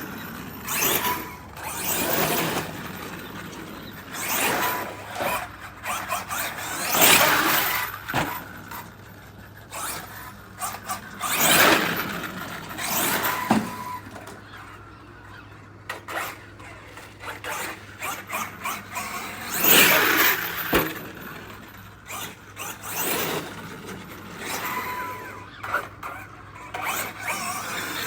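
Radio-controlled car driving in repeated runs: swells of motor and tyre noise that rise and fall every few seconds, with a steady low hum underneath.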